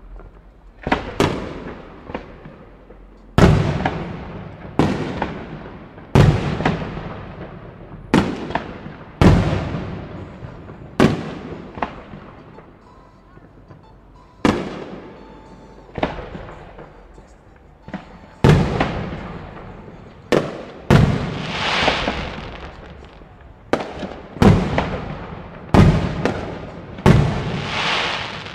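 Aerial fireworks shells bursting one after another, a sharp report every second or two, each rolling off in a long echo. There is a short lull about halfway through. A hiss swells and fades twice in the last third.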